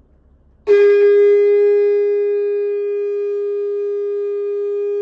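One long blown note held at a single steady pitch, starting abruptly under a second in and lasting nearly five seconds before cutting off.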